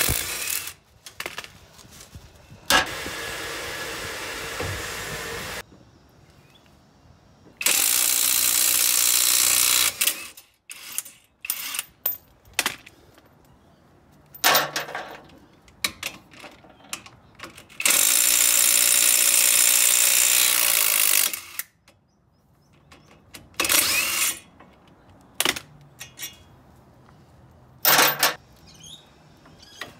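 Cordless power wrench running in three long runs of a few seconds each and several short bursts, spinning out the brake caliper guide bolts and the caliper bracket bolts. Between the runs come scattered clicks and clanks of tools and parts.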